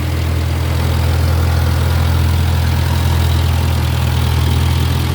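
Tractor engine running steadily after the start-up on a new battery, an even low-pitched drone, on the last of the fuel in an almost empty tank.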